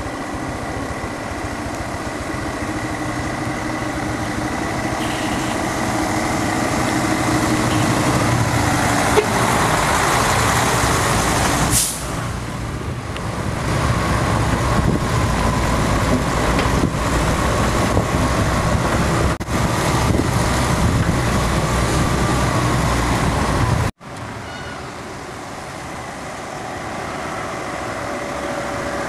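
Heavy truck engine running under load, building louder toward the middle, with a short hiss of air about twelve seconds in. About three-quarters of the way through the sound drops out abruptly, then the engine carries on quieter.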